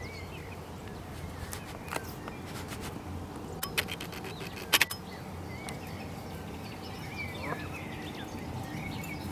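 Canada goose goslings giving scattered short, high peeps over a steady low rumble, with a few sharp clicks about four and a half seconds in.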